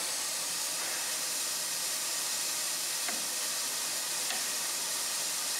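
Steady hiss of steam from an LNER J27 0-6-0 steam locomotive standing in steam, with a couple of faint light clicks about three and four seconds in.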